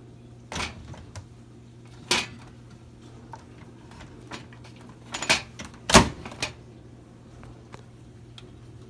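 Built-in microwave door being shut: a handful of clicks and knocks from the door and its latch, the loudest a sharp knock about six seconds in.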